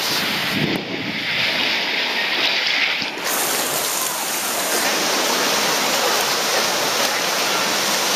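Steady rush of splashing, falling water, an even hiss with no breaks.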